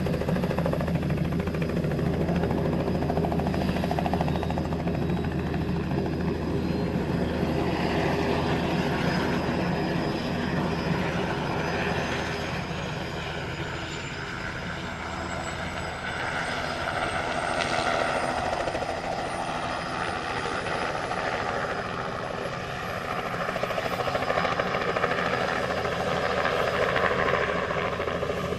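Eurocopter EC120B Colibri helicopter starting up, its Turbomeca Arrius turboshaft running with a thin whine that climbs steadily in pitch from about ten seconds in until near the end as the engine spools up and the main rotor gathers speed.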